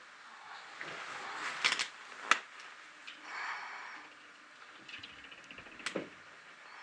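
Plastic treat ball being pushed and rolled over paving stones by a puppy: scraping rolls and several sharp knocks, the loudest about two seconds in and another near the end.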